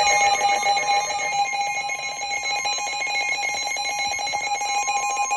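Emergency Alert System attention signal: a loud, steady two-tone alert tone with a fast crackle running through it, sounding the start of a flash flood warning.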